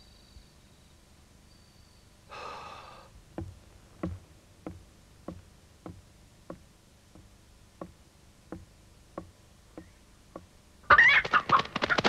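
About a dozen slow, even knocks, one roughly every two-thirds of a second. Near the end a caged rooster bursts into a sudden, loud flurry of wing-flapping.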